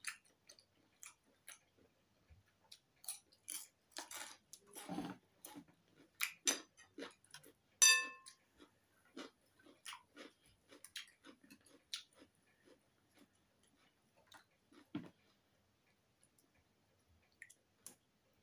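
Chewing noodles, with a fork and chopsticks clicking and scraping against a bowl. About eight seconds in there is one clear ringing clink of metal on the bowl.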